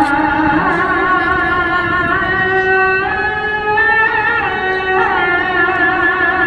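Muezzin's amplified call to prayer for the Isha (night) prayer: a single male voice holding long notes with wavering, ornamented melisma, moving to a new pitch a few times.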